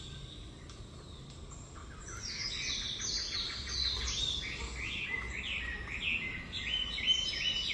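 Birds chirping and singing, a busy run of short falling notes that picks up about two seconds in, over a low steady background hum.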